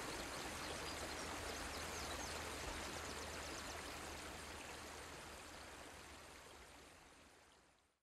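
Steady rushing-water ambience, like a flowing stream, with a few faint high chirps, fading out gradually over the last few seconds to silence.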